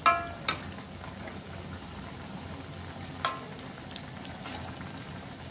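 Potato perkedel in an egg coating deep-frying in a wok of oil, a steady sizzling and bubbling, the oil frothing from the egg. A metal spatula clinks against the wok three times: at the start, about half a second in, and more sharply about three seconds in.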